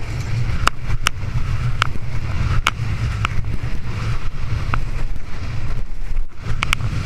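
Wind buffeting the body-worn camera's microphone as a windsurf board planes fast over chop, with water spray hissing off the board. Sharp knocks come at irregular intervals, roughly one a second.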